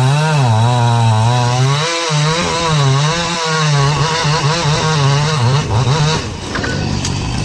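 Chainsaw engine running under load while cutting wood, its pitch repeatedly dipping and rising again as the chain bites. It cuts off about six seconds in.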